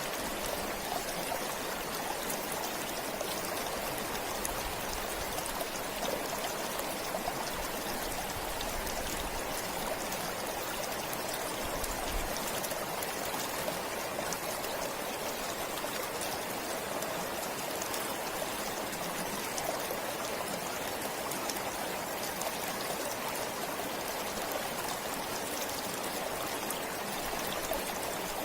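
A stream flowing, a steady, unbroken rush of running water.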